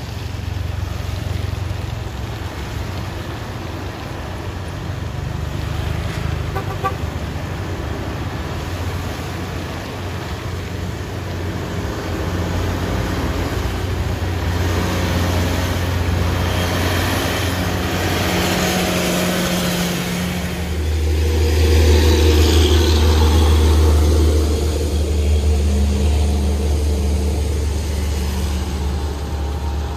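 Road traffic at close range: truck and car engines running with a steady deep hum, which grows louder about two-thirds of the way through as a heavy vehicle comes close. A vehicle horn toots.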